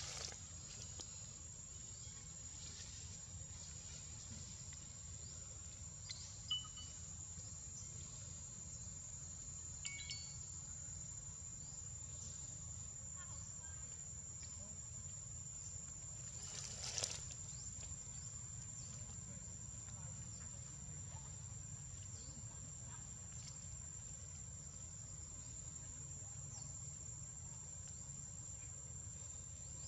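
Steady high-pitched drone of insects, with a low hum of background noise underneath. A few faint short chirps and clicks come through, and a brief louder rustle or knock a little past halfway.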